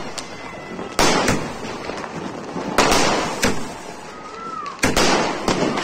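Fireworks going off: about eight sharp bangs, some in quick pairs, with a steady hiss between them.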